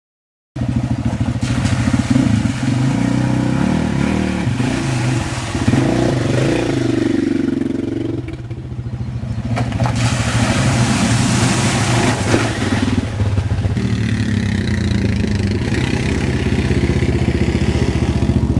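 Quad bike (ATV) engine running and revving up and down through a river crossing, starting about half a second in, with a rushing hiss over the engine from about ten to thirteen seconds in.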